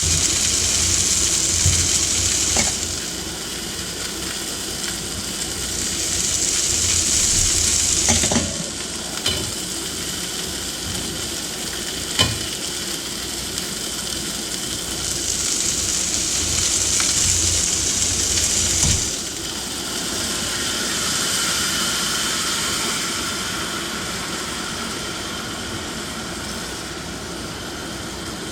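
Chicken wings sizzling as they fry in a pan. The sizzle swells louder three times and eases back, with a couple of sharp clicks of a utensil against the pan.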